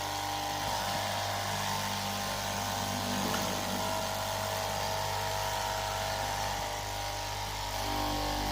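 13-inch straight-knife cloth cutting machine running steadily with an even motor hum, cutting through a stack of fabric.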